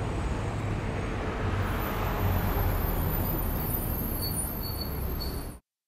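Steady street traffic noise with a low rumble, swelling a little about two seconds in, then cutting off abruptly near the end.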